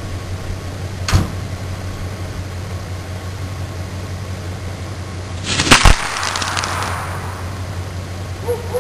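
Homemade tennis ball bomb filled with bottle-rocket powder going off with one loud bang about six seconds in, followed by a hissing tail that fades over about a second. A steady low hum runs underneath, with a single sharp click about a second in.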